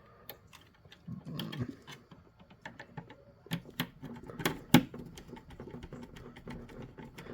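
Irregular light clicks and taps of a wire and screwdriver being worked into a screw terminal on a fire alarm control panel, with one sharper click a little past halfway.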